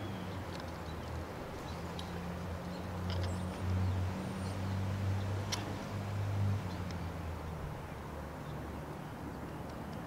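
Low hum of a vehicle engine, getting louder between about three and seven seconds in. Faint bird chirps and a single sharp click come about five and a half seconds in.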